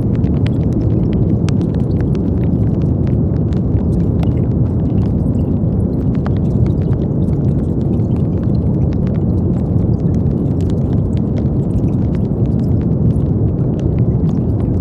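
Steady brown noise: a deep, even rumbling hiss weighted to the low end, with faint scattered clicks.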